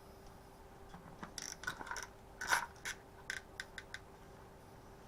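A string of irregular light clicks and rattles from hand tools and small engine parts being handled on a strimmer during a workbench teardown, the loudest about halfway through, over a faint steady hum.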